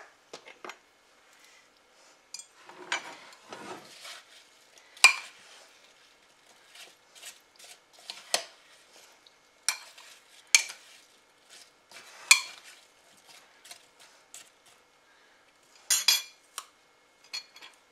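A spoon stirring chopped apples in syrup inside a glass measuring cup, knocking against the glass in irregular sharp clinks, the loudest about five seconds in.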